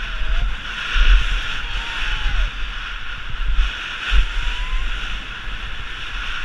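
Wind buffeting the microphone in heavy low gusts over a steady hiss, with a few faint falling tones.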